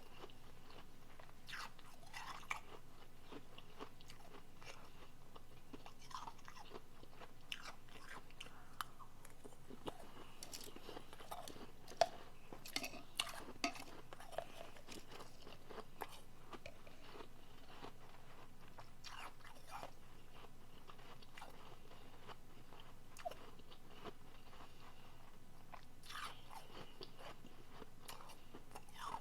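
Soft refrozen powdery blender ice being chewed close to the microphone: scattered crisp crunches, with a busier, louder run of crunching about midway.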